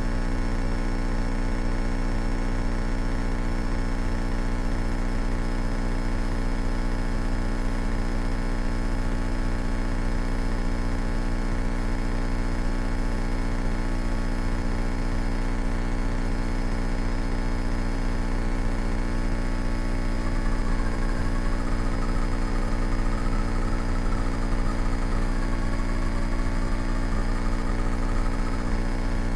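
Cockpit sound of a 1970 Cessna 172K in flight: its four-cylinder Lycoming engine and propeller droning steadily. A faint wavering tone joins about two-thirds of the way through.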